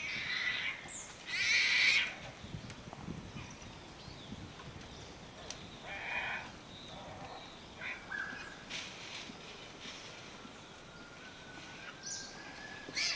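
Young Bengal tiger cub crying out to its mother with its contact cry: two loud, high calls in the first two seconds, then a few softer short calls and rustling in dry leaves. A thin, steady high whistle comes in over the last few seconds.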